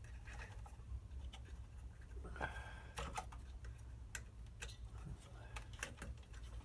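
Scattered small clicks and taps from handling the diesel heater's motherboard and its plug-in connectors while it is being unplugged and removed, over a steady low hum.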